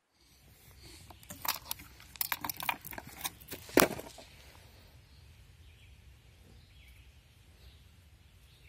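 Camera handling noise: an irregular run of sharp clicks and knocks lasting about three seconds, the loudest near the end, then a quiet outdoor background with a low rumble.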